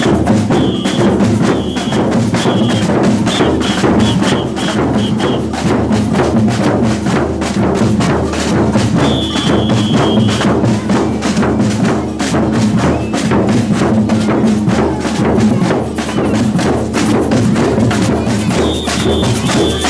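Batucada samba percussion band playing a loud, driving rhythm on drums and hand percussion. A high samba whistle cuts in with several short blasts in the first five seconds, a longer one about halfway and another near the end, cueing the players.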